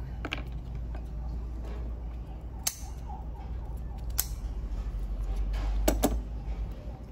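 Small tubers being snapped apart by hand: about five sharp cracks, two close together near the end, over a steady low hum.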